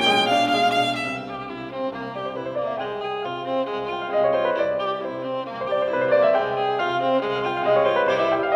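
Background instrumental music: a violin melody with vibrato over string accompaniment.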